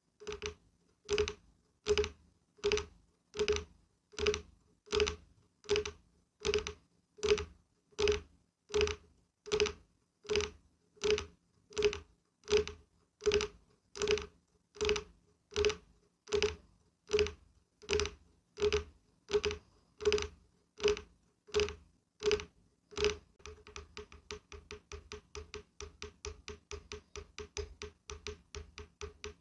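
Knuckles or fingertips knocking on a wooden object in a slow, even rhythm, each knock with a short hollow ring. Near the end the knocking turns to a quicker, softer run of taps, several a second.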